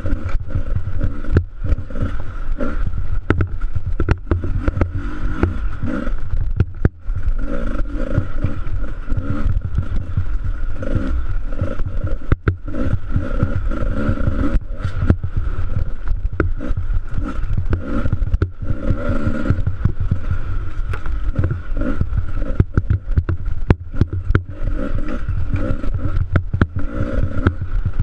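Dirt bike engine running hard under throttle, with short knocks and rattles throughout from the bumpy trail. The engine briefly drops off twice, a quarter and nearly halfway through, as the throttle is rolled off.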